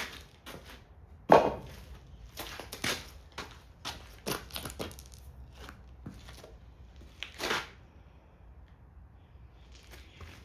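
Irregular knocks, clatters and scrapes of treated timber sleeper lengths being handled and set down on one another. The loudest knock comes just over a second in, and another strong one about seven and a half seconds in.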